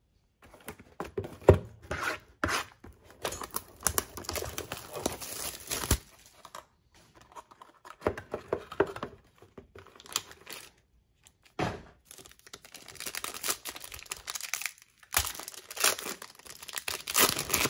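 A trading-card box being opened and its foil pack handled and torn open by hand: crinkling, rustling and sharp snaps in several spells with short pauses between them.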